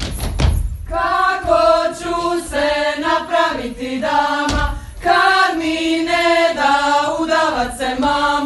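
A group of women singing a folk song together in two phrases, with a short break about halfway. In the first second, before the singing starts, their stamping dance steps thud on a wooden floor.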